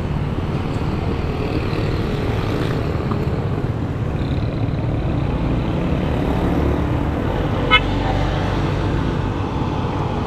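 Street traffic heard from a moving motorcycle: steady engine and road rumble. A vehicle horn gives one short toot about three quarters of the way through.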